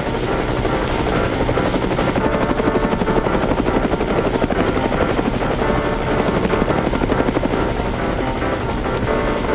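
Cartoon helicopter sound effect: a fast, steady rotor chop, strongest in the middle, over background music.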